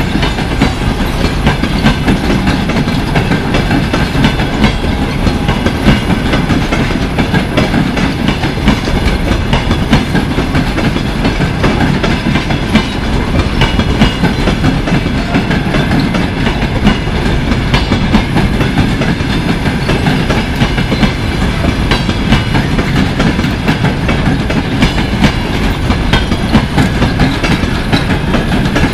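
Passenger coaches of a departing train rolling past, their wheels clicking over rail joints in a steady run of clicks over a low rumble.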